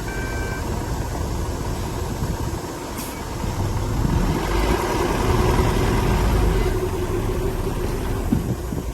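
Heavy diesel engine of earthmoving machinery running with a steady low rumble that grows louder for a few seconds in the middle, as if working under load, then eases off. A reversing alarm beeps once at the start.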